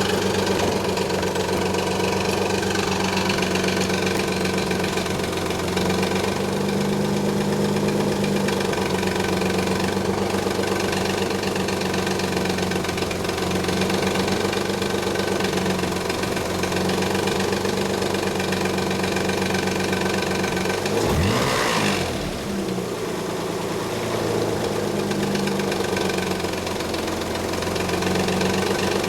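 1991 Nissan 300ZX's V6 engine idling with a steady mechanical noise, given one quick blip of the throttle about two-thirds of the way through. The noise comes from a collapsed timing belt tensioner letting the belt run with too much play, along with noisy upper and lower idler pulleys.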